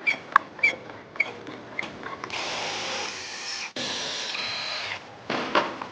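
Several sharp clicks and knocks from the BMW's front suspension as the car is worked to reproduce its speed-bump noise, the sign of a worn strut top mount whose rubber buffer has worn away. Then a power tool runs steadily for about two and a half seconds, with a short break in the middle.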